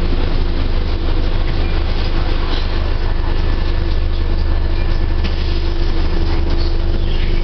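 Steady low rumble and noise of a moving train heard from inside the carriage, with a constant hum running under it.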